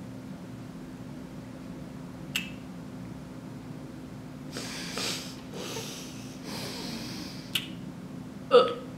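Mouth noises of people sucking on extra-sour bubblegum: two sharp mouth clicks, breathy sucking and puffing of air for a couple of seconds in the middle, and a short vocal sound near the end, over a steady low hum.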